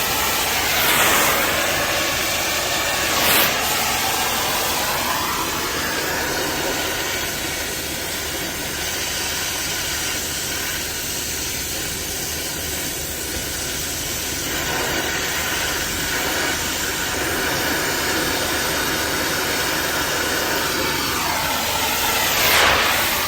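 Brazing torch flame burning with a steady hiss while heating a copper joint on a refrigeration filter drier to melt in the brazing rod. The tone sweeps briefly three times: about a second in, a few seconds in, and near the end.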